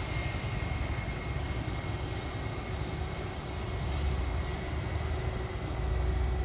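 Airbus A319 airliner's jet engines running at low power as it taxis: a steady whine over a low rumble that swells and fades.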